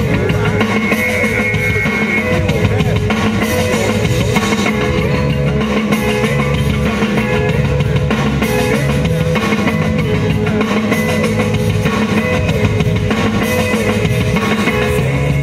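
Rock music with drum kit, bass and guitar and a steady beat.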